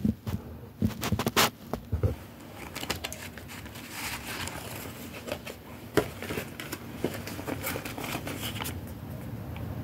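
A few knocks and handling noise in the first two seconds, then paper rustling as a lined notebook is handled and its pages opened, settling near the end.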